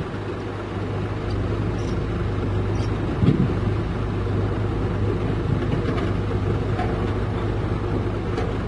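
Heavy diesel engine running steadily with a low, even hum.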